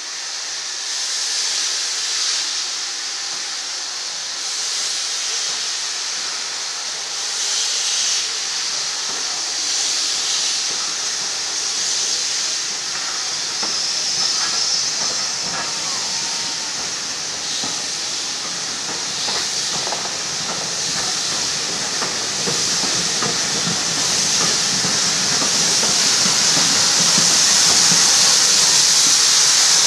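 Steam locomotive hissing steadily with escaping steam, louder near the end as steam billows along the train, under a low rumble of the coaches that builds from about halfway.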